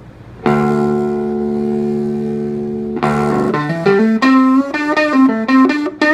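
Electric guitar played through a vintage Gretsch GA97T solid-state practice amp: a chord struck about half a second in and left to ring, then a quick run of single notes from about three seconds in.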